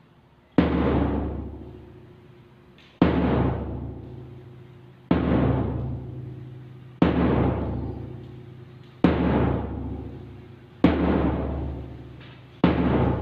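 A large drum struck with single heavy beats about every two seconds, seven in all, each ringing deeply and fading before the next. The beats keep the count for a drill exercise.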